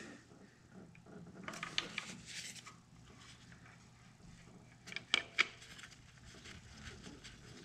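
Quiet handling of a spark plug and hand tools with gloved hands: a short scratchy rubbing sound about two seconds in, then two sharp clicks about five seconds in, with faint small ticks between.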